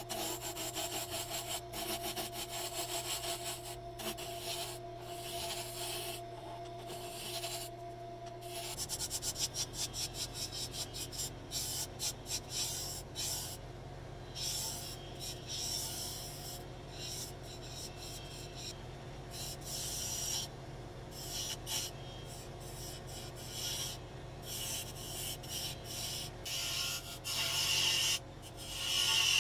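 Rhythmic back-and-forth abrasive rubbing strokes worked by hand, like sanding or filing metal or wood, repeated steadily throughout.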